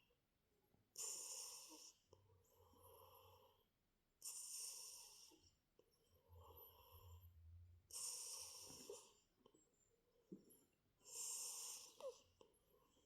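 Domestic cat snoring softly in its sleep: four airy, hissing breaths about three seconds apart, with a quieter low rumble between them.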